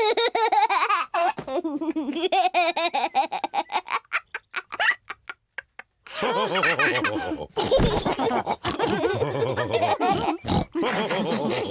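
Cartoon pig characters laughing: laughter in short, even pulses for the first few seconds, a brief pause about five seconds in, then several voices laughing together.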